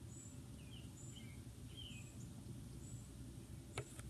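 Faint outdoor ambience: distant birds chirping in short high calls over a low steady rumble, with a single sharp click near the end.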